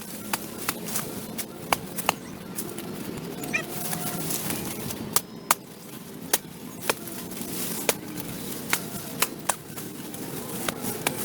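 Irregular sharp knocks, about a dozen, from a hand tool chopping and striking the sidewalk, over a steady background noise.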